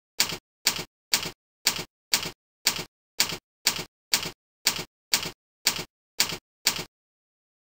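Sound effect of short, sharp taps at an even two a second, one for each letter as a handwritten title is drawn on screen. The taps stop about a second before the end.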